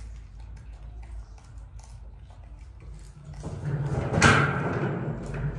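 A low steady rumble, then about three and a half seconds in a louder scraping, clattering noise with one sharp knock a moment later, dying away near the end.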